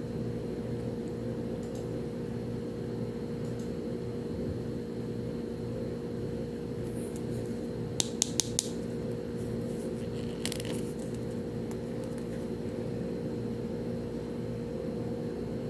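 Small plastic handling sounds from a miniature toy detergent bottle turned in the fingers: four quick sharp clicks about eight seconds in and a short scrape a couple of seconds later, over a steady low background hum.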